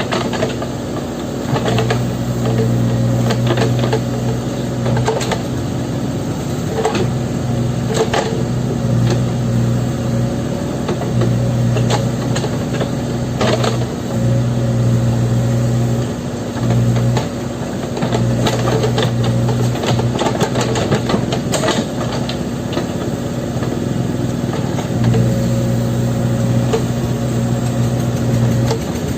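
Backhoe loader's diesel engine running and working, its low hum easing and picking up again several times, with scattered clanks and knocks throughout.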